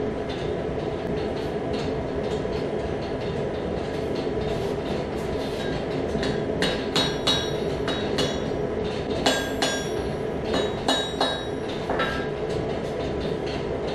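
Mallet blows on a red-hot damascus barrel tube against the anvil, a series of sharp strikes with metallic ringing starting about six seconds in, as the tube is forged down to a smaller diameter. Under them a forge runs with a steady rushing noise.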